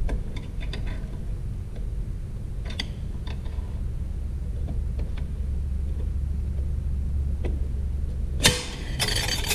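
Steady low machine hum with scattered light clicks and knocks of metal tools and transmission parts being handled, and a loud rattling burst about a second long near the end.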